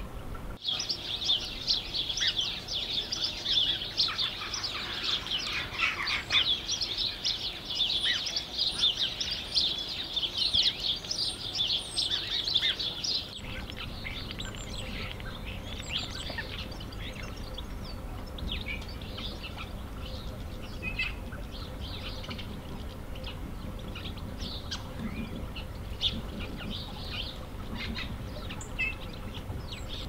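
Garden songbirds singing: a dense run of fast, high twittering song for about the first half, then quieter, scattered chirps and calls.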